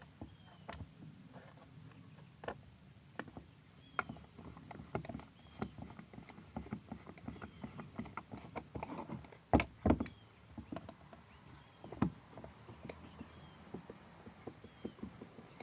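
Plastic display parts being handled on a workbench: irregular light clicks and knocks, the loudest a couple of sharp knocks about ten seconds in and another about two seconds later.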